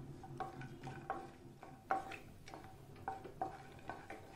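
A spatula stirring cashews and almonds frying in ghee in a non-stick kadai: irregular light taps and scrapes against the pan, roughly two a second, each with a brief ring from the pan.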